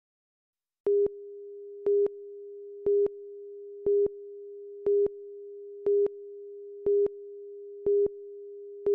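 Broadcast countdown leader: a steady single-pitch tone with a louder beep on it once a second as the numbers count down, nine beeps in all, starting about a second in.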